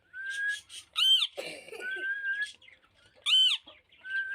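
Rose-ringed parakeet calling: two loud, sharp screeches a little over two seconds apart, with short level whistles in between.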